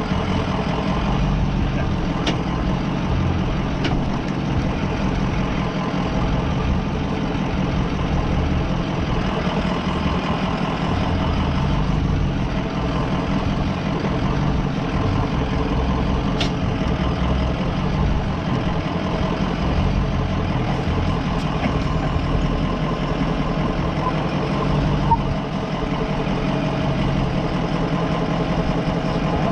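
Ford E350 Sportsmobile van's engine running steadily at low revs as the van creeps down a steep off-road descent. A few brief sharp clicks or knocks sound over it.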